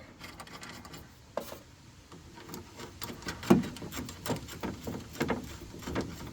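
Irregular clicks and knocks of the door's handle and latch parts being handled and fitted back into the truck door, the loudest knock about halfway through.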